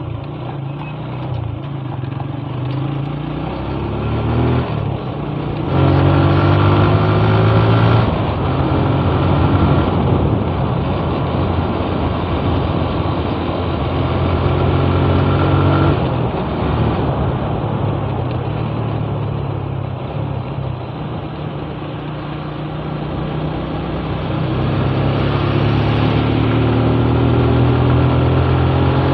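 Motorcycle engine running while riding, under a steady rush of wind and road noise. The engine note climbs as it accelerates about five seconds in, eases back about three seconds later, and climbs again over the last few seconds.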